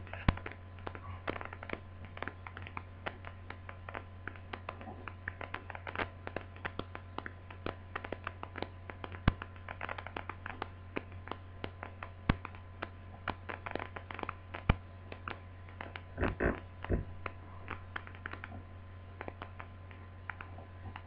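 Hands working multimeter probes against the centre-pin plug of a laptop AC adapter: many small clicks and light scrapes, a few sharper taps, and a busier patch of handling near the end, over a steady low hum.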